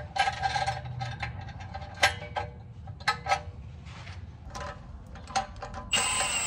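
Sharp metallic clicks and clinks as steel exhaust-clamp parts are handled. Near the end a Milwaukee cordless impact wrench starts up on a clamp nut and runs with a steady whine.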